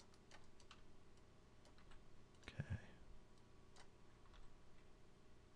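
Faint, scattered clicks of a computer mouse, with one louder soft thump about two and a half seconds in.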